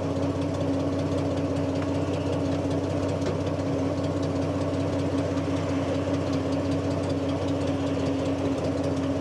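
Daimler Ferret armoured car's Rolls-Royce B60 straight-six petrol engine running steadily, its pitch unchanging.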